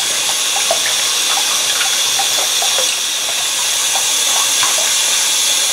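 Bathroom sink faucet running, its water led through a long tube into a plastic gallon jug that is filling: a steady rushing hiss with small gurgling blips from the water entering the jug.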